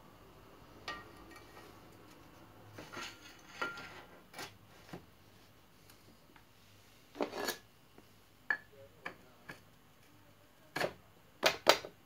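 Metal-on-metal clicks, short scrapes and knocks as a Shimano XT crank spindle is slid through the bottom bracket bearings and the crank is pushed home against the cup. Several sharp knocks near the end are the loudest.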